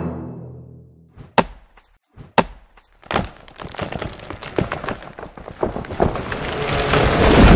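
Two sharp axe chops into wood about a second apart, then a long run of wood cracking and splintering that grows louder toward the end, as of a trunk giving way.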